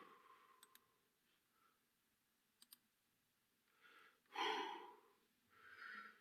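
Near silence: a voice recording with its background hiss stripped out by noise reduction, broken by a few faint clicks and a short breath about four and a half seconds in, with a fainter one near the end.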